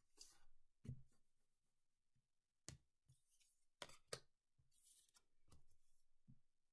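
Faint handling of tarot cards on a tabletop: a few light taps as cards are drawn from the deck and set down, then a soft brushing as a card slides across the table.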